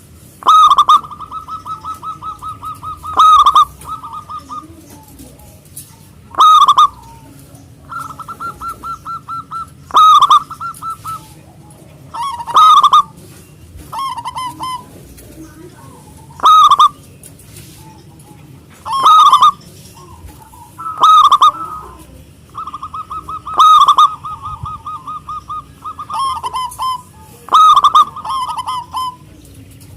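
Zebra dove (perkutut) singing in a big, full voice: rapid rattling trills leading into loud 'kung' coos, repeated every two to four seconds.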